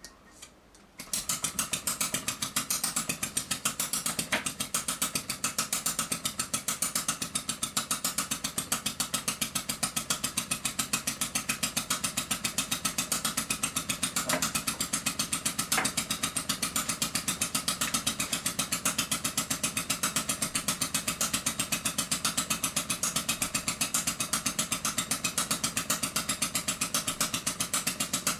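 Miniature two-stroke crosshead hot-bulb engine catching about a second in under hand cranking, then running steadily with a rapid, even mechanical beat.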